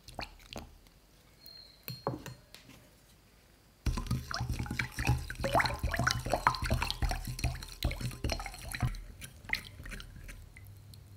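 Shallot pieces dropped into salt-and-sugar brine in a glass bowl, landing with a few separate plops. From about four seconds in the water is stirred briskly, a busy run of splashing and sloshing that thins out near the end.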